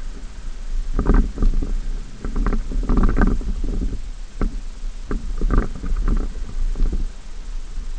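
Low, steady rumble of a Ford F-150's 5.0 L V8 and tyres driving over sand, heard from inside the cab, with irregular knocks and short louder bursts between about one and seven seconds in.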